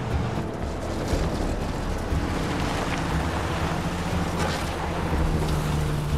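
An E30 BMW 3 Series car driving fast on a dirt road: engine running with tyre noise on gravel. A low steady drone comes in about halfway.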